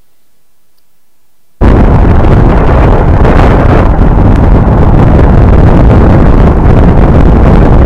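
Loud wind buffeting and road noise picked up by a microphone under a car at 70 mph, aimed at the rear differential. It starts suddenly about one and a half seconds in. The differential whine at around 610 Hz does not stand out from the noise.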